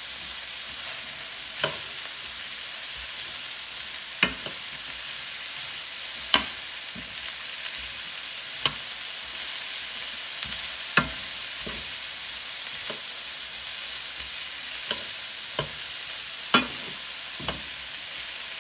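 Sliced bell peppers and red onions sizzling steadily in oil in a stainless steel pan while being stirred with metal tongs. The tongs clack sharply against the pan every second or two.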